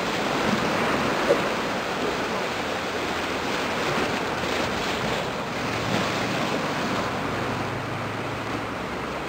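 Steady rush of small waves washing on the shore, with some wind on the microphone. One brief short sound stands out about a second in.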